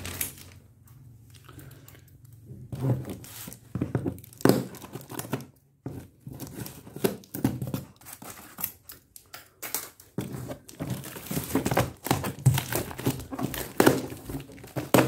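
Plastic packaging crinkling, rustling and tearing as a packet of gaming-chair parts is opened by hand, with a few sharper knocks among the rustle. It grows busier in the second half.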